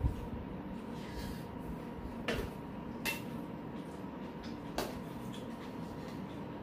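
Metal spoons and chopsticks clinking against stainless-steel bowls during a meal, about four sharp clinks, one with a brief metallic ring, over a steady low hum.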